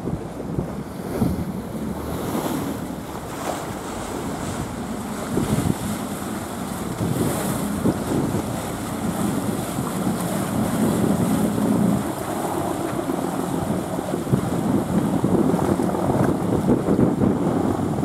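Wind buffeting the microphone over choppy sea waves washing against a concrete pier, in gusts that rise and fall.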